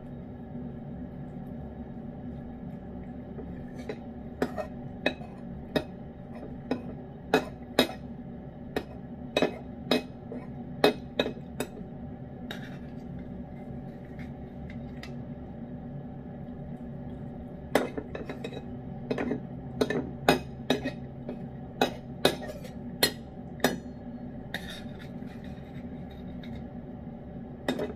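A metal spoon clinking and scraping against the inside of a tin can of wet cat food, in two runs of quick sharp taps with a pause between them. A steady low hum runs underneath.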